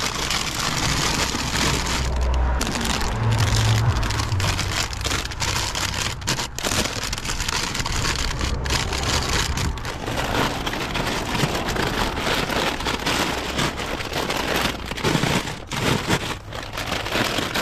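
Plastic snack bags crinkling and rustling as they are handled and pushed onto shelves, in a dense run of irregular crackles.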